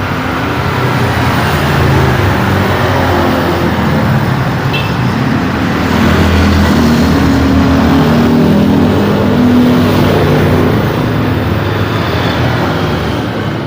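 Busy road traffic: a steady mix of engines and tyre noise from passing vehicles, with a heavy vehicle's engine running louder and lower about six to eleven seconds in.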